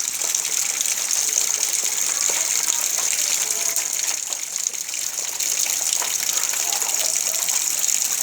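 Heavy rain falling steadily: an even, dense hiss with fine pattering drops.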